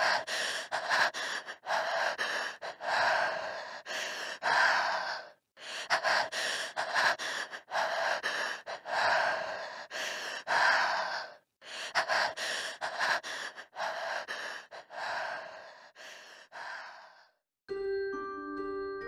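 Rapid, heavy breathing, quick panting breaths in runs of several seconds that cut off abruptly, with a thin sound lacking low tones. Near the end it stops and soft mallet-like music notes begin.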